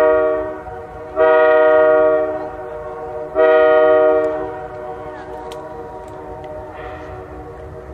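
Locomotive air horn sounding three blasts, each a steady multi-note chord about a second long: the first ending about half a second in, the next two following about a second apart, the last dying away about four and a half seconds in.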